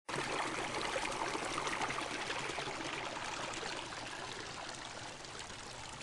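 Running water of a stream, an even rushing flow with small splashes, slowly fading over the few seconds.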